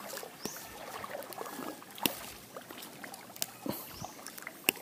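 Handling noise of a fern frond being worked in the hands: soft rustling with a few sharp clicks, the loudest about two seconds in and just before the end, over faint river water.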